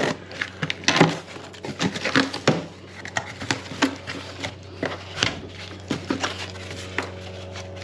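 A cardboard shipping box being opened: a knife slits the packing tape, then the cardboard flaps are folded back and the inner cardboard handled, with irregular scrapes, crinkles and taps.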